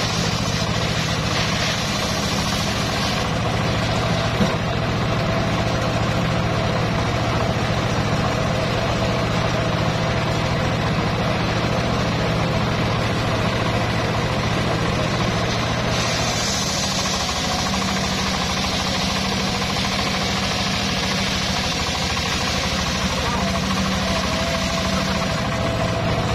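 Homemade circular sawmill running: its stationary engine holds a steady drone while the blade rips a log lengthwise, with a hiss of cutting that grows stronger in the last ten seconds.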